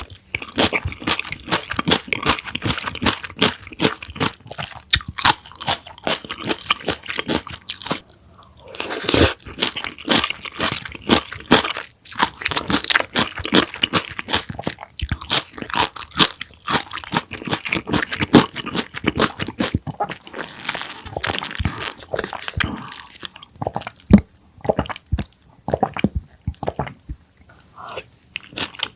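Close-miked eating of coleslaw: rapid crisp crunching and chewing of shredded raw cabbage, with a short pause about eight seconds in followed by a strong bite.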